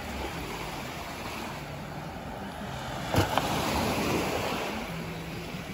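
Small waves washing onto a pebbly beach, one swelling in and out over the second half, with wind on the microphone. A couple of sharp clicks come about three seconds in.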